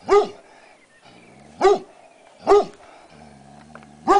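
English Setter barking: four single sharp barks about a second apart, with a low growl between the third and fourth, at a snake hidden under a wheelbarrow.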